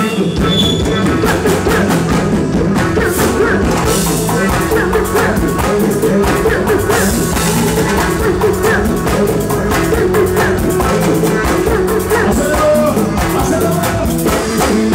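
Live pagode baiano band music driven by a percussion section of congas and timbales playing a fast, steady groove, with keyboard and bass underneath.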